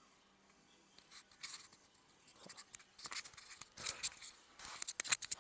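Irregular scratchy rustling and clicks close to a clip-on wireless lavalier microphone, as fabric rubs against it. It starts about a second in and grows busier toward the end.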